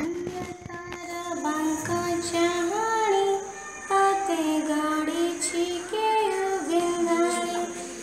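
A girl's voice singing an Odia devotional bhajan to Jagannath in long held notes that glide from one pitch to the next, with a short breath pause near the middle.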